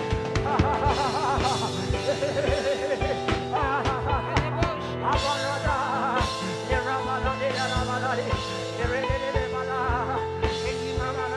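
Music: a singing voice with vibrato over long held chords and a steady beat.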